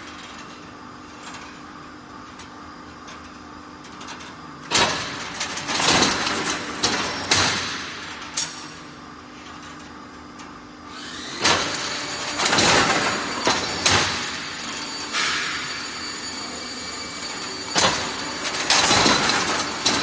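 Hydraulic crimped wire mesh weaving machine running: a steady hum broken by irregular loud clanks and stretches of clatter as the steel wires are worked into mesh.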